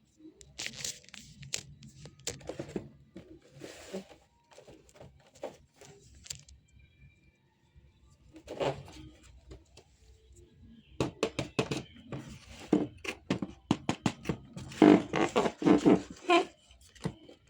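Packaging being handled and opened, with scattered rustling, tearing and light knocks that come thicker and louder in the last few seconds.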